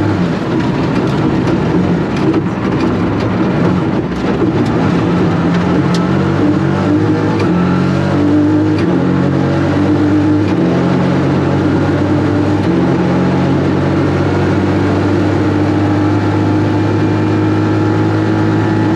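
Toyota GR Yaris rally car's 1.6-litre turbocharged three-cylinder engine at full throttle on a gravel stage. Its pitch jumps between levels several times as it changes gear, then holds steady, with a few sharp clicks in the first half.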